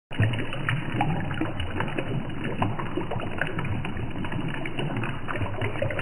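Water trickling and splashing in a small tabletop fountain made from plastic bottles: thin streams falling from its tubes into a cup and a lower bottle basin, with a steady splash and many small drips.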